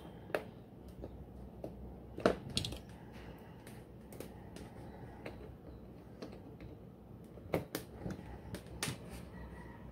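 Scattered sharp clicks and light rattles of wire leads and small plastic connectors being handled and plugged onto an air conditioner's universal control board as the temperature sensor is connected. There is one louder click about two seconds in and a few more near the end.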